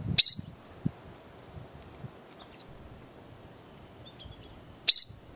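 Arctic ground squirrel (siksik) giving two short, high-pitched calls about four and a half seconds apart. Faint notes of a pine grosbeak can be heard between them.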